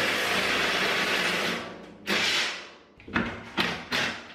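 Rusty carriage bolt grinding as it is worked loose, its head held still by a screwdriver blade set in a notch cut into it: one long metallic scrape, then several shorter ones.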